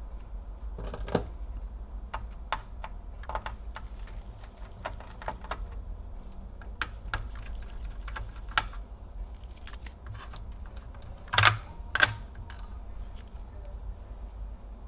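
Light, scattered plastic clicks and taps as small cable connectors inside an HP Compaq 6830S laptop are worked loose and unplugged. Two louder knocks come about three-quarters of the way through.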